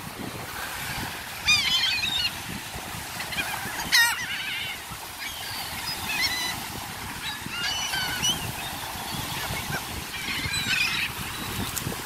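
A flock of seagulls calling again and again, wavering squawks every second or two, the loudest about four seconds in, over a low rush of surf and wind.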